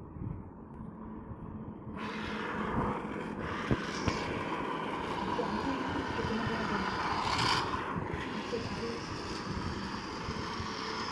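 Toy bullet train running around a plastic track: a steady motor whir and wheel rattle that grows louder about two seconds in and swells as the train passes close, most of all about seven seconds in, with a couple of small clicks around four seconds.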